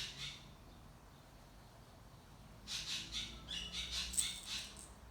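Tiny dead blow hammer being shaken by hand, the shot inside its head rattling in quick irregular clicks. The rattling starts a little past halfway in.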